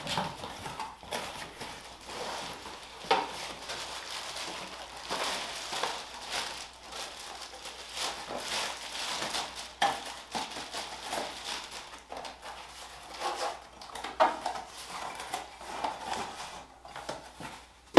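Packaging being opened and handled, with intermittent rustling and scattered clicks and knocks of small telescope accessory parts being unpacked from their box.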